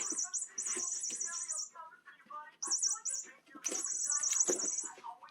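Electronic cat toy giving off high, rapidly warbling squeaks in three bursts, the last one longest.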